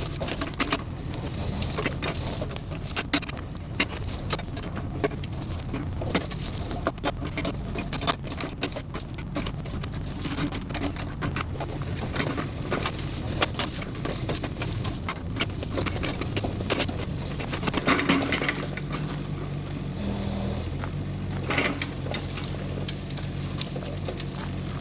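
Kubota KX71-3 mini excavator's diesel engine running steadily, with many short clicks and knocks from the machine at work. There is a louder scraping rasp about 18 seconds in and another near 21 seconds.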